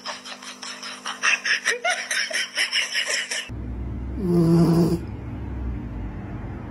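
A dog panting fast, about four or five breaths a second, for the first three seconds or so. Then a sleeping pet snoring, with one long snore about a second long just after the change.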